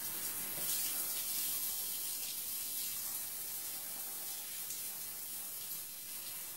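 Shower running: a steady spray of water from a shower head, easing slightly towards the end.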